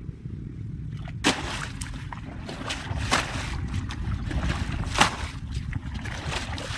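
Plastic bucket scooping and flinging muddy water out of a shallow ditch, bailing it down: repeated sloshing and splashes starting about a second in, the sharpest about three and five seconds in, over a steady low rumble.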